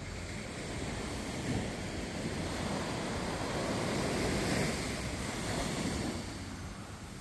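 Ocean waves washing in, a rushing noise that swells to a peak about halfway through and eases off near the end.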